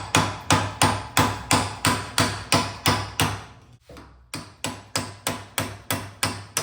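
Hammer blows on steel in a steady run of about three strikes a second, pausing briefly about three and a half seconds in and then resuming: a worn U-joint being driven out of a Jeep Dana 30 axle shaft.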